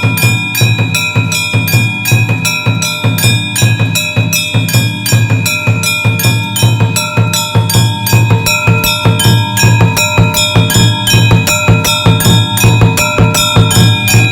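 Drums and bells played together in a fast, even rhythm of several strokes a second, in the style of Hindu temple worship music. The bells ring on between the beats.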